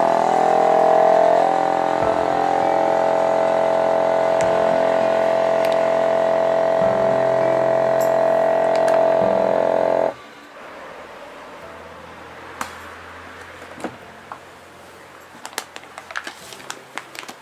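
Vacuum sealer's pump running with a steady hum as it draws the air out of the bag, then cutting off suddenly about ten seconds in once the bag is evacuated and sealed. Afterwards, scattered clicks and the rustle of the plastic vacuum bag being handled.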